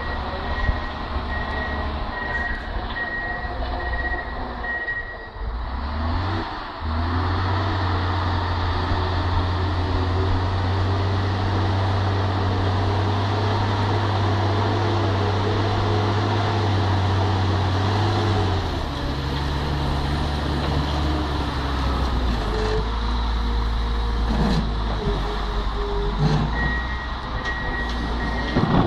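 Tracked snow groomer's diesel engine working the snow. It revs up about six seconds in, holds a steady high note until about nineteen seconds, then eases back to a lower run. A faint high, broken tone is heard at the start and near the end.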